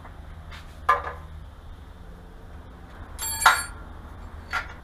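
Metal engine valvetrain parts clinking as the rocker arms are taken off the cylinder head: a sharp click about a second in, a loud ringing metal clink about three and a half seconds in, and a lighter clink near the end.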